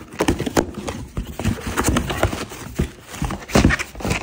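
Cardboard shipping box handled and opened by hand: flaps and sides knocking and scraping in a quick, irregular run of taps, with plastic air-cushion packing rustling near the end.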